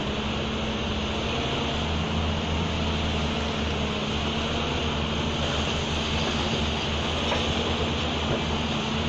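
Large hydraulic excavator's diesel engine running steadily under load while digging and loading.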